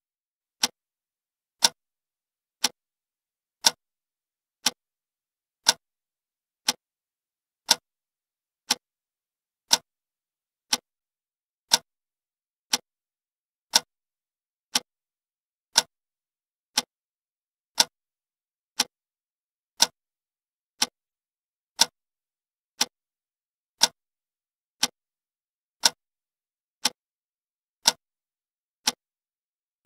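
Clock ticking steadily, one sharp tick a second with silence between the ticks.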